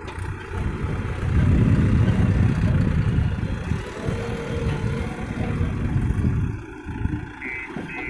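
JCB 3DX backhoe loader's diesel engine running under load as the machine drives and manoeuvres with its front loader bucket. It grows louder about a second in and drops back near the end.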